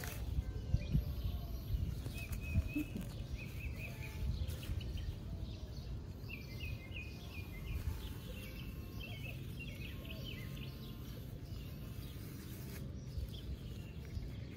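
A hand digger cutting and levering into soil and turf, with a few thuds and scrapes in the first few seconds, over a low rumble. Small birds chirp in short repeated calls.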